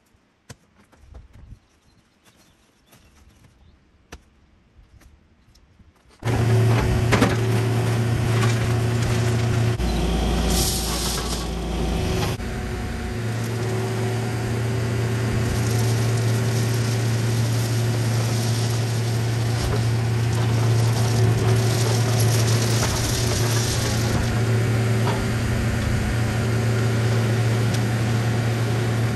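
A few faint clicks, then about six seconds in an engine starts being heard, running steadily at an even speed with a strong constant hum.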